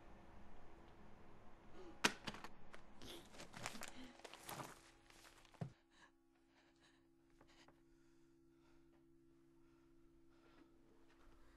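A sharp thump about two seconds in, followed by a few seconds of knocks and rustling and one more hit, then a low steady hum.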